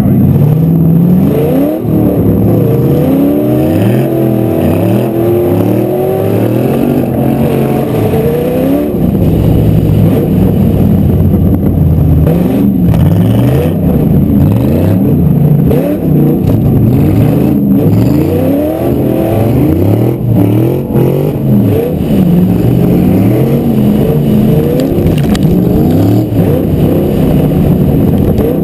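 Ute engine heard from a camera on its bonnet, revving hard up and down again and again in quick rising and falling sweeps during stunt driving on grass.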